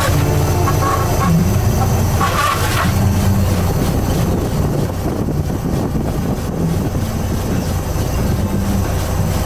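Lobster boat's engine running steadily while the pot hauler pulls a trap line up over the davit block, with two brief higher squeaks about one and two and a half seconds in.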